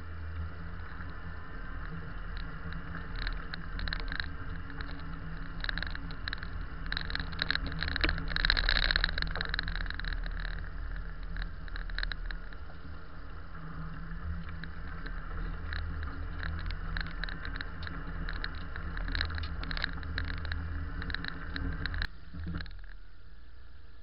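Vehicle engine and tyres heard from inside the cab while driving through deep, rutted snow: a steady low rumble with many short clicks and knocks, busiest a third of the way in. Near the end it cuts to a quieter, steady engine idle.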